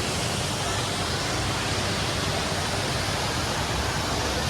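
Steady, even rushing of a large indoor waterfall, the Rain Vortex at Jewel Changi Airport, pouring down.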